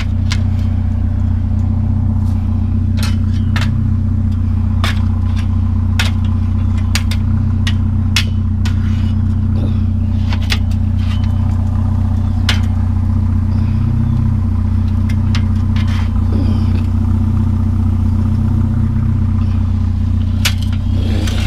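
Truck engine idling steadily, with scattered short metal clanks and rattles as a metal bed rail is loaded into the truck bed.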